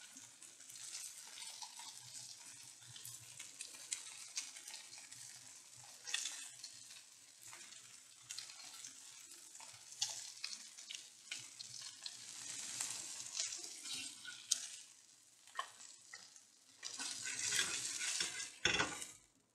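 Fish frying in oil on a dosa tawa, a faint steady sizzle with scattered small clicks and pops. Near the end a metal spatula scrapes across the tawa as a fried fish piece is lifted off.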